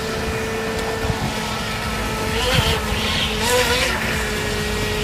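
Small electric motor of a radio-controlled speedboat whining at a steady pitch, the pitch wavering twice around the middle as the boat turns, with bursts of hissing spray at the same time.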